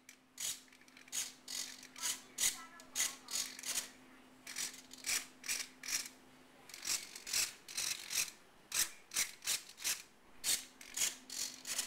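Small RC servos whirring in short, irregular bursts, about two a second, with a gear-like rasp to each burst.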